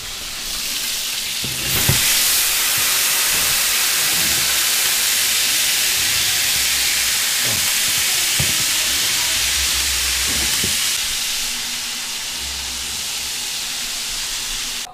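Rendered goose fat and juices sizzling loudly in a hot roasting pan as the roast goose is drawn out of the oven, with a few low knocks as the pan is handled. The sizzle swells about two seconds in, eases a little near the end and cuts off abruptly.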